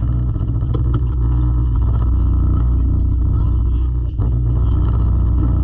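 A boat's engine runs steadily under way, a loud, even low drone heard from on board, with a brief dip about four seconds in.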